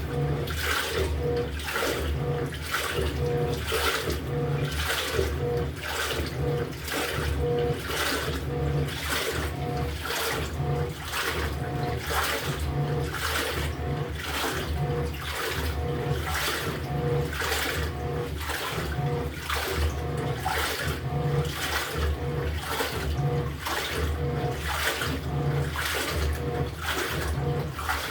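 LG top-load washing machine's pulsator agitating a full drum of water, the water sloshing in an even rhythm a little more than once a second as the pulsator swings back and forth, with a faint motor hum under each stroke.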